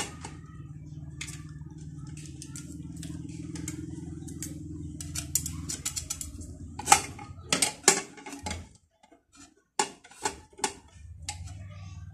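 Small metal clicks, taps and scrapes as a roller bearing and a knife blade are worked against the metal side frame of a DNP DS-RX1 dye-sublimation printer to seat the roller end in its hole, with a cluster of sharper clicks about seven to eight seconds in. A low steady hum runs underneath and stops for about two seconds near the nine-second mark.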